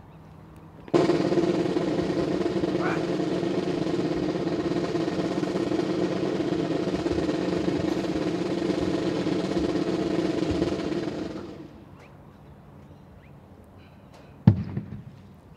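Military band snare drum roll, about ten seconds long, starting abruptly about a second in and fading out near 11 s. A single sharp thump follows near the end.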